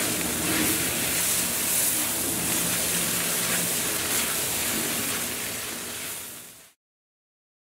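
Noodles and vegetables sizzling as they are stir-fried and tossed with a silicone spatula in a hot Lodge cast iron wok; the sizzle fades out about six seconds in.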